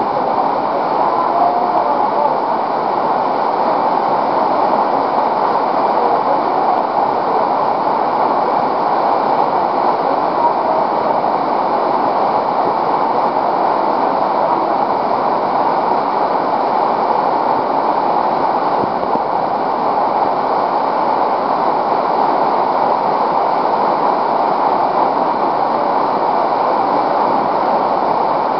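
Waterfall pouring down a steep, narrow rock chute into a pool, a loud, steady rush of falling water.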